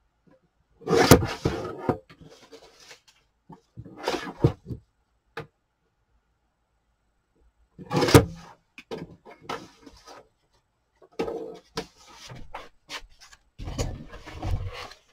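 Paper and card being handled and shuffled on a craft table, in several bursts of rustling with a few light taps, busiest near the end.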